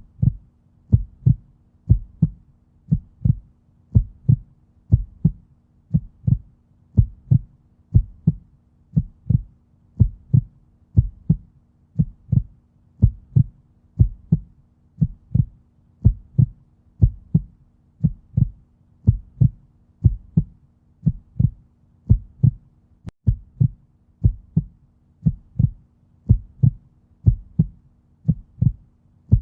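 Heartbeat: a steady lub-dub, each beat a pair of low thumps, about one beat a second.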